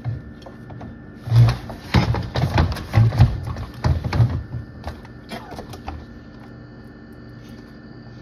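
A man gagging and retching on a mouthful of pickled turkey gizzard: a string of loud heaves over about three seconds, then a few fainter sounds before it goes quiet.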